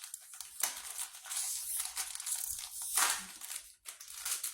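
Snack cake's wrapper being torn open and crinkled by hand, in irregular bursts of rustling, loudest about half a second in and again around three seconds in.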